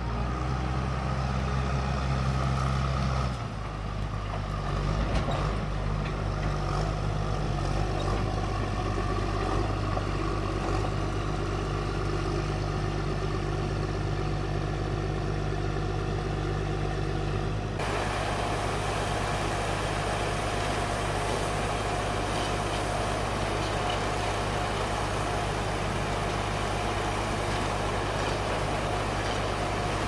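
Heavy skidder's diesel engine running steadily, with the sound changing abruptly about three and a half seconds in and again a little past halfway.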